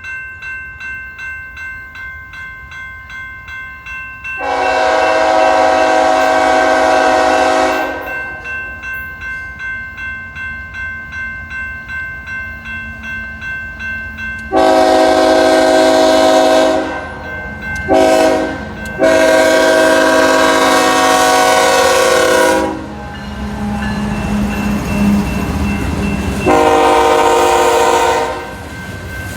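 Train horn sounding the grade-crossing signal: two long blasts, a short one and a long one, then one more long blast near the end. Each blast is a chord of several notes. Between the blasts a crossing bell rings steadily about twice a second, and in the later part the passing train's engine and wheels rumble.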